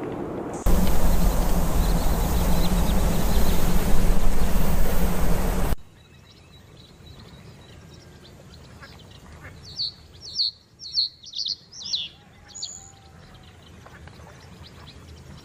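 A loud, steady rushing noise starts suddenly and runs for about five seconds, then cuts off abruptly. After a quiet stretch, a reed bunting sings one short song of about seven quick high notes, ending on a single higher note.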